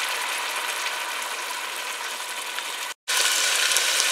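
Chopped tomatoes sizzling in hot oil and fried masala in a steel pot: a steady crackling hiss. The sound cuts out for a split second about three seconds in, then the sizzling carries on.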